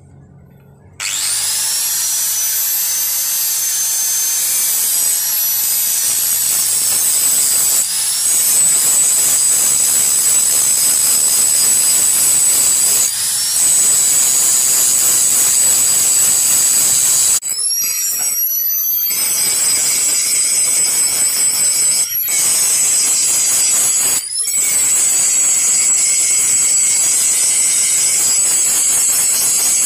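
Electric angle grinder starting about a second in and grinding a steel machete blade with an abrasive disc. Its high motor whine sags in pitch as the disc bears on the steel and climbs again each time it is eased off, several times over.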